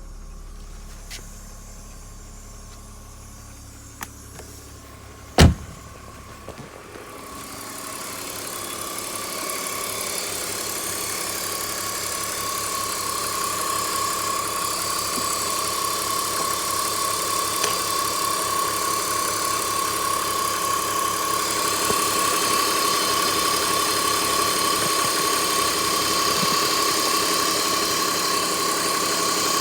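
A metallic, flow-like whirring under a BMW E46, from an unknown location and cause. A loud click comes about five seconds in. The sound then builds over a few seconds into a steady high tone with a fine rapid flutter, which holds.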